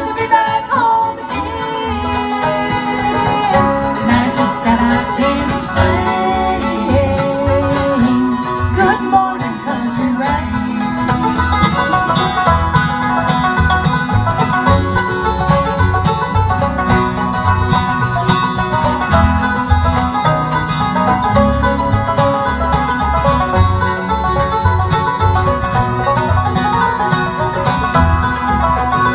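Live acoustic bluegrass band playing: banjo, fiddle, mandolin and acoustic guitar over upright bass keeping a steady beat.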